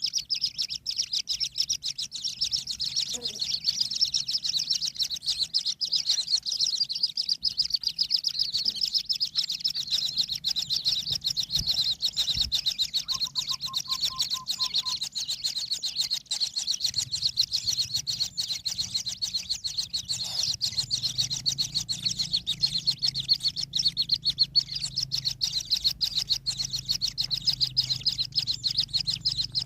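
Kingfisher nestlings begging: a continuous, high, rapid chattering buzz that goes on without a break.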